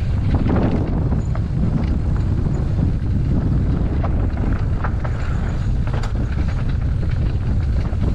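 Wind rumbling on the microphone during a mountain-bike ride, steady throughout, with scattered light clicks over it.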